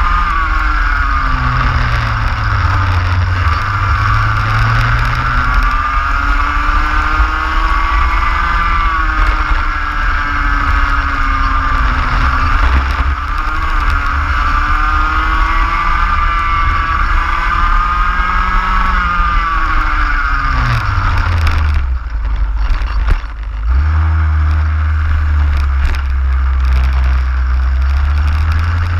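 Racing kart engine from on board at full race speed, its pitch climbing along each straight and falling back into the corners. About 21 seconds in, the note falls away sharply for a couple of seconds as the driver lifts off, then pulls again.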